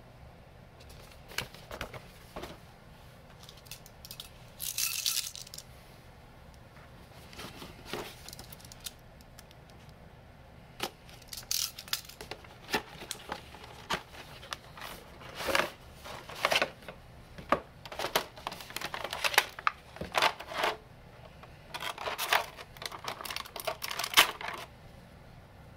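Hands opening a cardboard toy box and handling the clear plastic tray holding an action figure: scattered taps, clicks and plastic crinkles, with a longer rasping rustle about five seconds in and busier handling in the second half.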